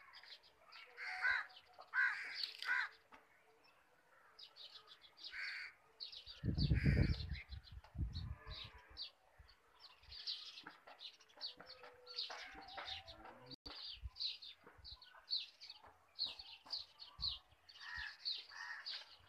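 Wild birds calling in the trees: harsh cawing calls in the first few seconds and again near the end, and rapid, high chirping through the second half. A brief low rumble about seven seconds in.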